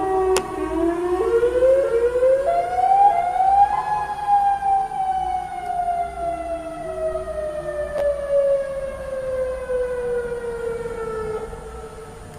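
Outdoor tornado warning siren winding up, its pitch rising for about three seconds, then slowly winding down for about eight seconds. Two sharp clicks are heard, one near the start and one about two-thirds of the way through.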